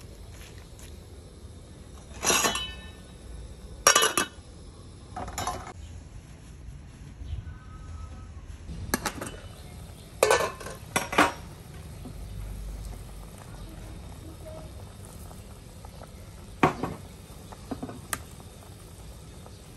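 A steel ladle stirring in an aluminium cooking pot, knocking against its side in a string of sharp clanks, some of them ringing briefly.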